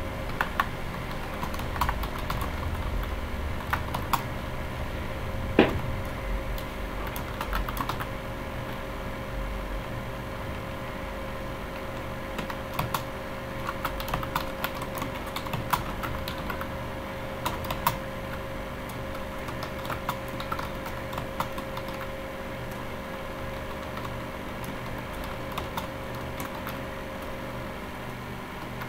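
Typing on a computer keyboard: irregular runs of keystroke clicks with a lull about eight to twelve seconds in, over a steady background hum.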